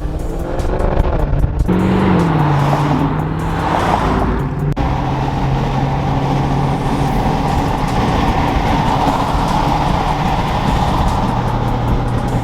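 Car engine running under way, its pitch climbing and then dropping about two seconds in as it revs and shifts, then settling into a steady drone while cruising.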